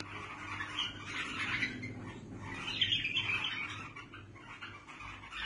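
Caged Diyala bulbuls calling in two rough, harsh bouts, one early and one near the middle. The roughness is the quality that marks Diyala bulbuls apart from ordinary bulbuls.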